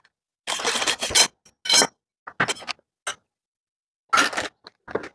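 Stainless steel rods of a cloth drying stand being slid out of their plastic wrap and pushed into plastic end-frame sockets: a string of short scrapes and rustles with gaps between them.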